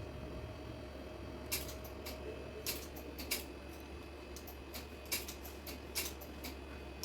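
Scattered light clicks and taps at irregular intervals, about half a dozen, over a steady low hum.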